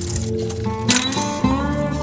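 Background music with held, sustained notes that change pitch a few times.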